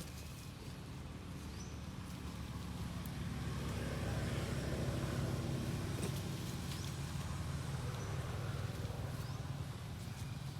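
A passing motor vehicle: a low engine hum that swells to its loudest about halfway through and then eases off, with a few faint short chirps above it.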